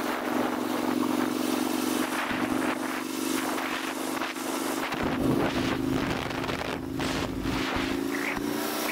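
Sport motorcycle engine running steadily at cruising speed under loud wind rush. From about halfway through, low wind buffeting on the microphone joins in, and the engine note rises slightly near the end.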